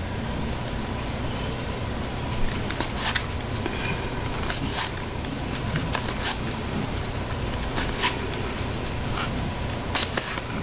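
Tarot cards being slid and flicked from hand to hand while a deck is leafed through: short, irregular clicks of card against card over a steady background hum.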